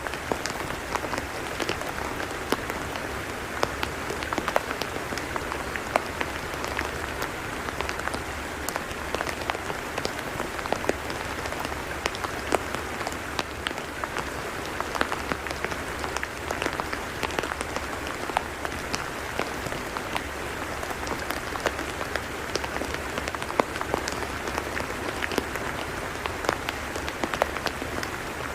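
Rain falling on a tidal mudflat: a steady hiss with many scattered, sharp drop ticks.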